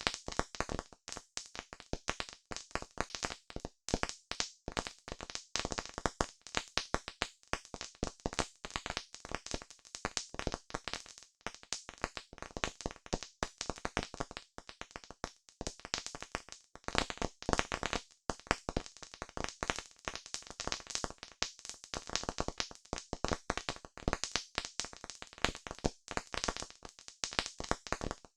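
Campfire crackling: a dense, irregular run of sharp pops and snaps from burning wood.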